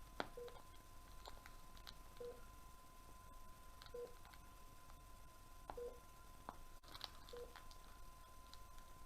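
Faint short electronic beeps, one about every second and a half to two seconds, over a steady high tone, with a few light clicks.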